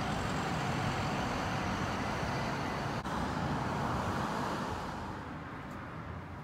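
Street traffic noise: a steady wash of a passing vehicle's tyres and engine, fading off near the end.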